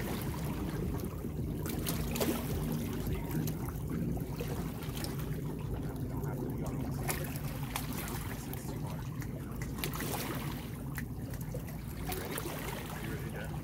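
Lakeshore water ambience: light water trickling and lapping around the rocks over a steady low drone.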